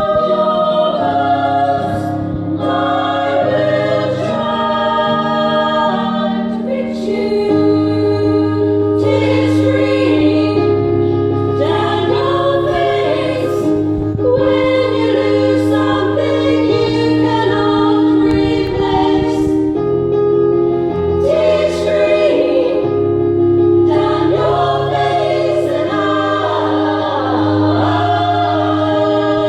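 Women's choir singing together, over an accompaniment of low held bass notes that change every few seconds.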